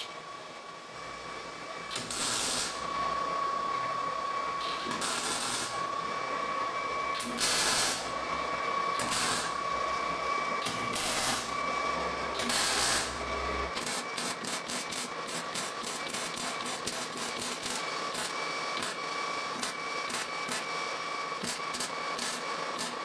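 MIG welding, tacking steel caster plates onto a square-tube frame: bursts of welding arc about a second long over a steady hiss and high hum, giving way about halfway through to rapid short tacks, two or three a second.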